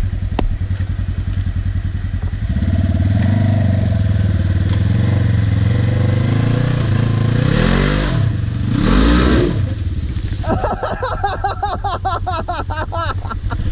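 Polaris RZR 900 side-by-side's twin-cylinder engine idling, then revving up as it takes a run at a log obstacle. The revs rise and fall twice about halfway through, then run high and uneven near the end.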